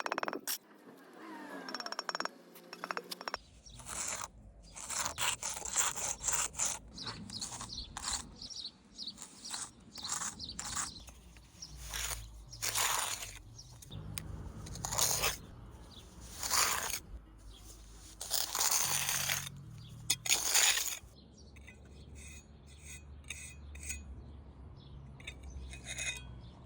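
Bricklayer's steel trowel scraping and spreading mortar: a run of short, irregular scrapes with small knocks as the bricks are worked.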